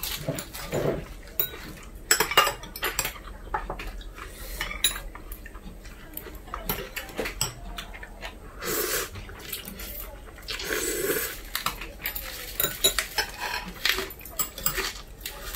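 Metal spoons and chopsticks clinking and tapping against bowls and dishes while eating, a scatter of short sharp clicks throughout. There are a couple of longer, noisier stretches about nine and eleven seconds in.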